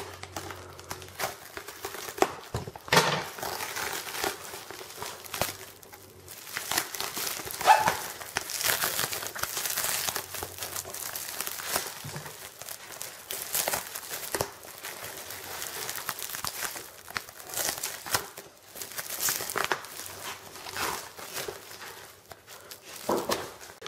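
Paper parcel wrapping being cut and torn open by hand: irregular crinkling and rustling of paper, with many sharp crackles.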